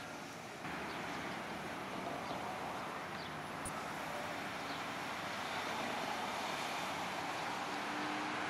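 Steady road traffic noise as cars pass along a street, growing slightly louder toward the end.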